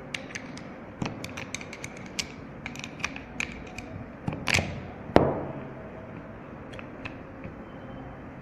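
Small metal parts of a car door lock clicking and clacking as they are handled and fitted together, with a brief scrape about four and a half seconds in and a sharp knock with a short ring just after it, the loudest sound.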